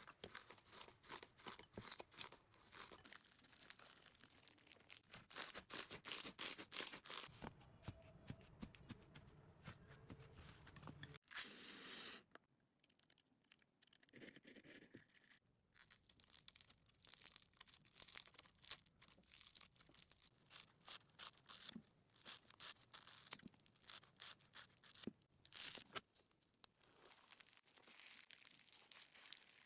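Slime being squished and pulled by hand, making dense runs of small crackling pops and clicks with quieter pauses between handfuls, and one louder, longer rush of noise about eleven seconds in.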